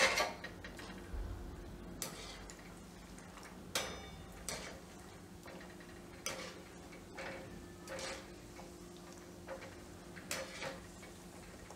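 Cashews deep-frying in a kadai of hot oil: scattered light pops and clicks every second or so over a faint steady hum.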